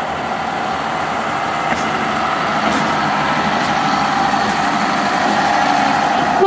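Red Hen diesel railcar running as it rolls slowly past at close range, its engine note steady and growing gradually louder.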